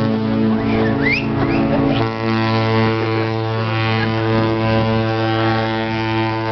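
Cruise ship horns blowing long, deep, steady blasts together in a horn exchange between two ships, their tones overlapping into a chord. About two seconds in, the lowest horn tone changes as one blast gives way to another.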